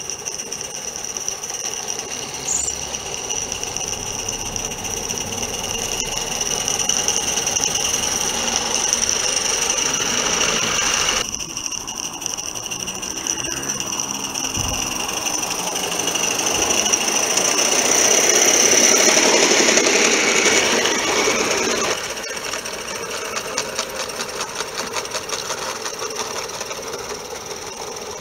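Accucraft live-steam model tram locomotive running with its train on a garden railway track: a rapid, even beat of exhaust and running gear over a steady steam hiss. The sound changes abruptly twice.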